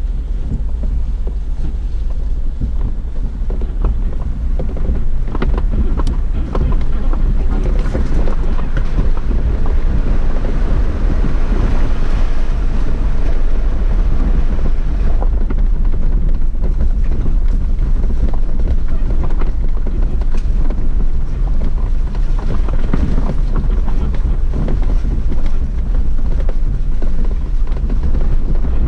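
Jeep driving slowly over a rocky off-road trail: a steady low rumble with wind buffeting the microphone, and scattered knocks as it goes over rocks.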